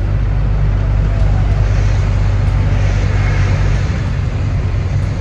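Diesel truck engine running at steady road speed, heard from inside the cab as a constant low drone, with an even hiss of rain and tyres on the wet road over it.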